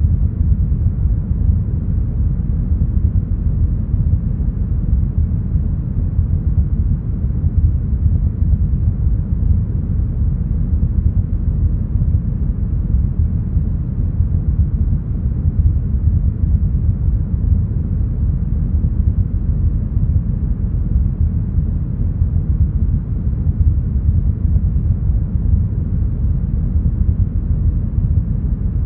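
Deep, smoothed brown noise: a steady, even noise with its weight in the low end and almost nothing in the treble.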